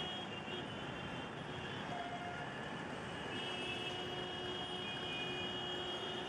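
Steady city street traffic noise, an even wash of passing vehicles, with a few faint steady tones over it.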